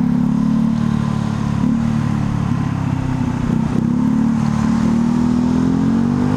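Motorcycle engine running steadily while riding, heard from on the bike. Its pitch climbs near the end as the rider accelerates.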